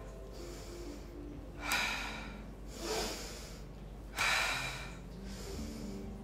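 Forceful rhythmic breathing during a yoga breathing drill: two sharp exhales about two and a half seconds apart, with a softer breath between them.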